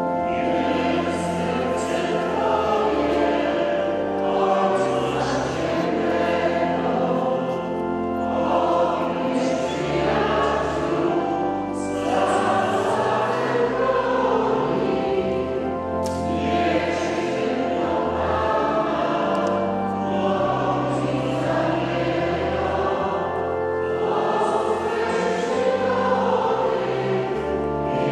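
A choir singing a hymn, with sustained low accompanying notes beneath the voices.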